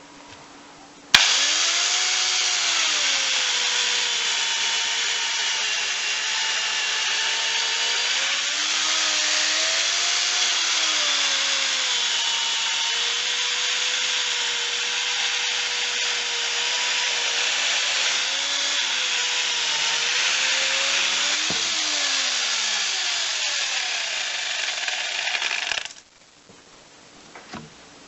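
A 1.8 kW angle grinder driving a homemade chainsaw adapter runs and cuts wood with its slightly dull chain. It starts abruptly about a second in, its motor pitch dips and recovers as the chain bites, and it cuts off suddenly near the end.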